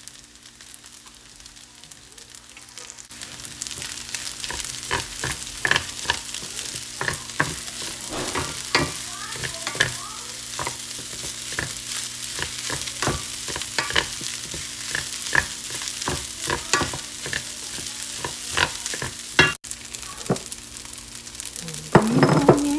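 Rice frying and sizzling in a stainless steel pan, with a wooden spatula scraping and knocking against the pan as the rice is stirred and tossed; the sizzle grows louder about three seconds in. A steady low hum runs underneath, and a louder wavering tone cuts in near the end.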